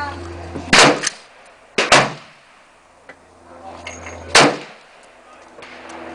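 Three loud rifle shots from a Sig Sauer M400 AR-15 firing 5.56 rounds, each a sharp crack with a short echo: the first two about a second apart, the third some two and a half seconds later.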